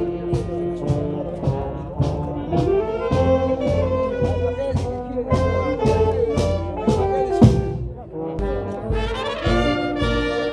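Live brass band playing: trumpets and other brass holding a melody over a tuba, with a steady beat of about two strokes a second. About three quarters of the way through the music thins out for a moment, then comes back with heavier bass beats.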